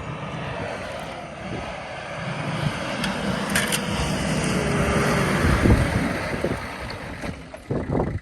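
Off-road 4x4 engine running hard under load as the vehicle drives over rough ground. The sound swells to a peak about halfway through and then fades away.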